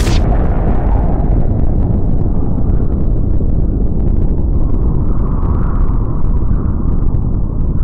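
Nuclear explosion sound effect in its aftermath: a loud, deep, steady rumble. The bright hiss of the blast cuts off right at the start and leaves mostly low bass.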